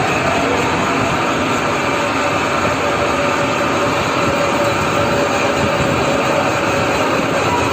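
Lathe running while turning a metal part: a steady mechanical whir with a faint held tone in the middle of the cut.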